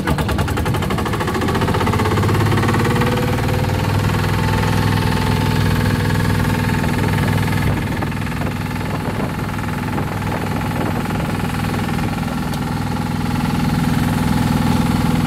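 Engine of a wooden Thai longtail boat running steadily while the boat is under way.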